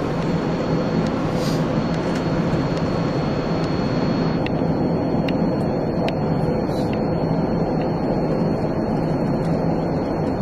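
Steady cockpit noise of an Airbus A380 in flight: even rushing air and ventilation hum on the flight deck, with a thin high tone and a few faint clicks.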